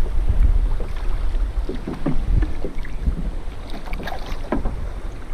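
Wind rumbling on the microphone over choppy sea water splashing around a plastic kayak, with a few short splashes.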